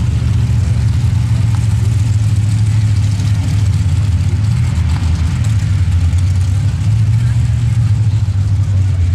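Dirt drag race vehicle's engine idling with a loud, steady low rumble.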